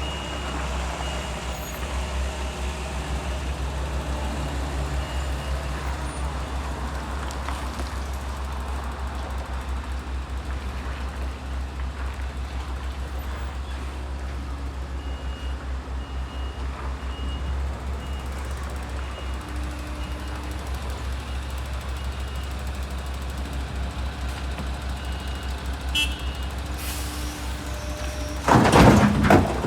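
JCB excavator's diesel engine running steadily, with stretches of a repeated high-pitched warning beep. Loud noisy bursts come near the end.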